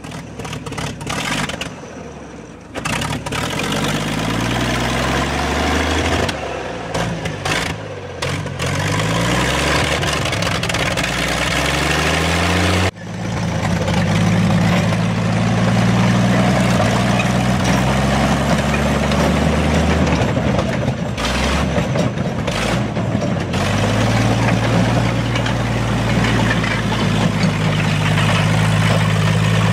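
1950 Oliver Cletrac crawler tractor's engine fires up and revs unevenly up and down for the first dozen seconds. About 13 seconds in it runs more steadily, with a few shifts in speed.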